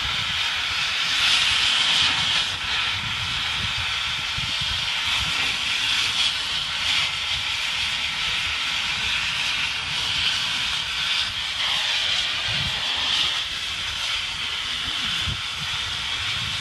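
Cutting torch hissing steadily as it burns through a steel anchor chain link.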